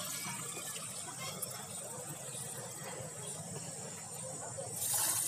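Water poured from a plastic tub into a pigeons' water pot, splashing, with a brief louder rush of hiss near the end.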